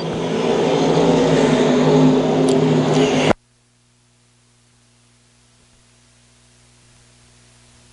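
A pack of dirt-track stock cars racing by, their engines swelling louder, then cut off abruptly about three seconds in, leaving only a faint steady hum.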